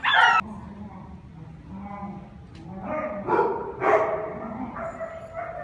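Dogs barking and yipping: a loud short bark at the start, then two more barks about three and four seconds in, with fainter whining and yips between them.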